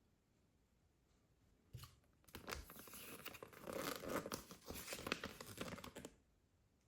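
Packaging being torn open and crinkled, starting just after a single tap and lasting about four seconds before stopping.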